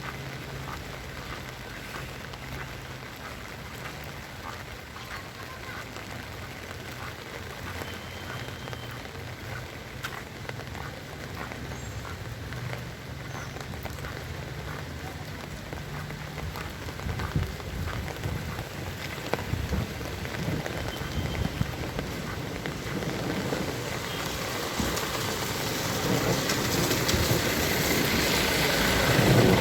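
Heavy rain falling, with many close drops ticking through a steady wash. A low hum sits under it for the first half, and the rain swells louder over the last few seconds.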